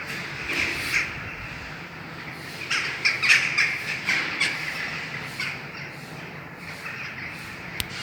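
Birds squawking in repeated short calls over a steady outdoor background noise, the calls thickest around the middle.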